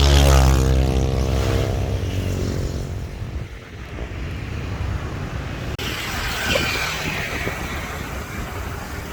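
An engine passes by, loudest at the start, its pitch falling as it goes. A little past halfway it cuts abruptly to a steady rushing noise.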